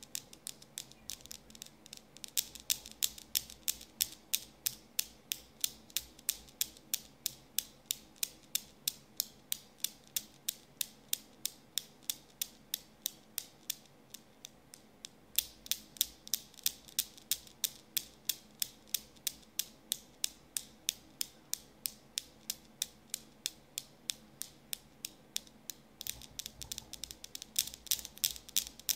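Steel balls of a Newton's cradle clacking in a steady rhythm, about three clicks a second, kept swinging by a cat batting them with its paw. The clicks weaken briefly about halfway through, then come back louder, strongest near the end.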